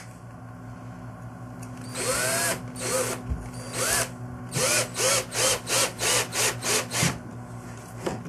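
Cordless drill driving a Kreg self-tapping pocket screw into a wooden jig arm in short trigger bursts. About two seconds in there is one longer run, then a quick series of short pulses, each a whine that rises and falls as the motor spins up and stops.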